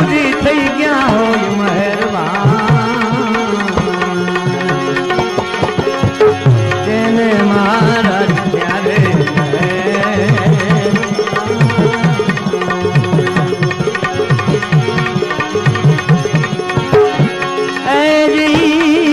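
Devotional bhajan music: tabla playing a quick, steady rhythm under a melody instrument that holds and bends its notes, an instrumental passage between sung verses. Near the end the music grows louder.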